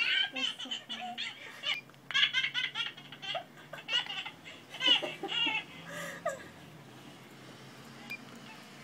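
Twin babies laughing in quick, repeated bursts of giggles and belly laughs, heard through a baby monitor's speaker. The laughter stops about two-thirds of the way through.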